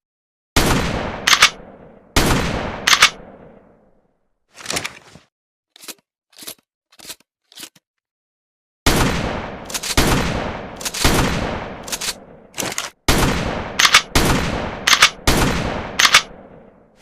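Pump-action shotgun firing, each blast trailing off in a long echo, with the sharp clack of the pump being racked between shots. Two shots come near the start, then a few lone racking clicks, then a faster string of about eight shots roughly a second apart.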